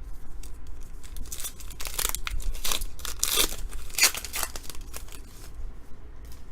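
A sports-card pack's plastic wrapper being torn open and crinkled by hand: a quick run of short tearing and rustling noises, loudest from about one and a half to four and a half seconds in.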